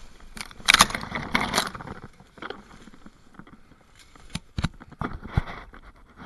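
Footsteps rustling through deep dry fallen leaves, with a loud burst of rustling about a second in and a few sharp clicks, like twigs snapping, near the end.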